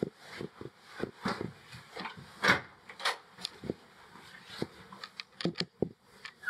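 Footsteps and the rustle of a winter coat and backpack, with a few sharp clicks from a hotel room door's handle and latch as the door is opened.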